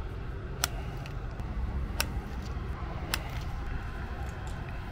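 Open-air ambience with a steady low wind rumble on the microphone, broken by three sharp clicks about a second apart.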